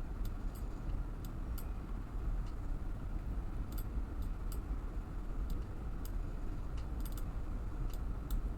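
Scattered light clicks of a computer mouse and keyboard at irregular intervals, over a steady low hum.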